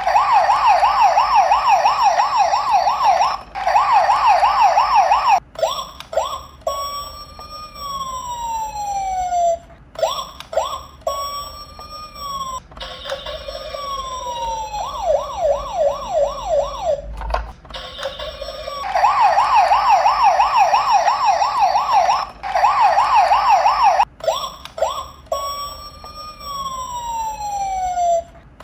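Electronic police and ambulance sirens in a fast yelp, rising and falling about four times a second, cutting out and starting again several times. Between the bursts come long single tones that slide steadily down in pitch over about two seconds.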